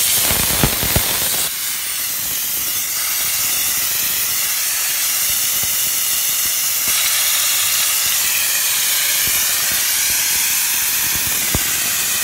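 Trigger steam gun of a 12-bar LPG-fired steam car washer held open, blasting a continuous jet of wet steam at a middle wet/dry setting: a loud, steady hiss.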